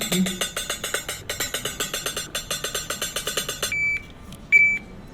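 Slot machine running with a fast, even ticking, about eight clicks a second, typical of spinning reels, which stops short of the end. Two short electronic beeps follow, the second one loud.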